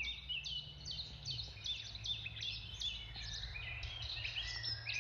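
A songbird singing a fast series of short, high, downward-sliding chirps, about three a second, over a low steady hum.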